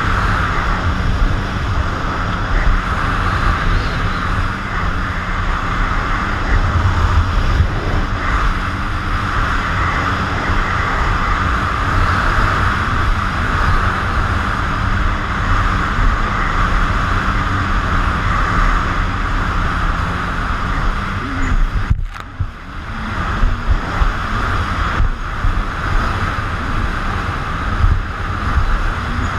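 Personal watercraft engine running at speed, with wind buffeting the helmet-cam microphone and water rushing and spraying against the hull. The sound dips sharply for a moment about three-quarters of the way through.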